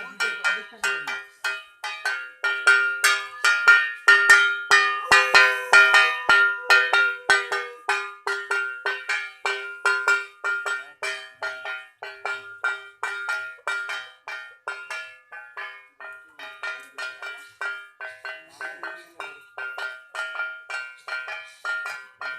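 Metal hand bell rung rapidly and continuously, about three to four strikes a second, its ringing tones carrying over from one strike to the next, typical of the bell rung during a puja.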